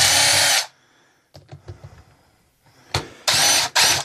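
Cordless drill spinning bolts out of a hydraulic pump's cover in short bursts of motor whine: once at the start and twice near the end, with a few light knocks of metal parts in between.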